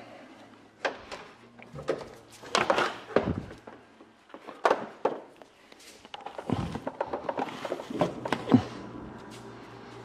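A string of knocks, thumps and handling noise as a refrigerator's power cord is pulled out and its plug is pushed into a wall outlet. The loudest knock comes near the end.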